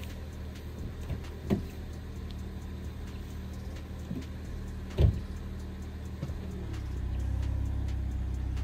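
Hyundai Elantra engine idling steadily, heard from behind the car. There is a small knock about a second and a half in and a sharp thump about five seconds in, and the low rumble grows louder near the end.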